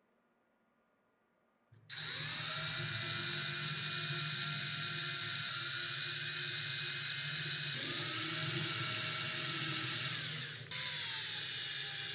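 Electric angle grinder switched on about two seconds in, its motor running at steady high speed with a whining tone. Near the end the sound breaks off briefly, then the grinder runs again.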